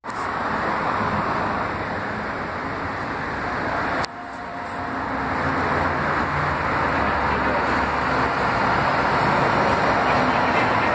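Steady machinery running noise with a low hum. It drops off suddenly about four seconds in, then builds back up over the following few seconds.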